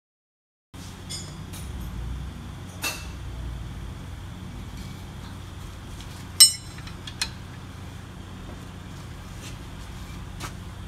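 Metal hand tools clinking and tapping against a brake caliper and its bolts, with one sharp, ringing metal clink about six seconds in, over a steady low hum.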